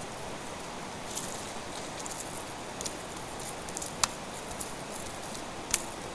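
Steady rush of a shallow river flowing over stones, with scattered sharp clicks and ticks from about a second in, the loudest about four seconds in.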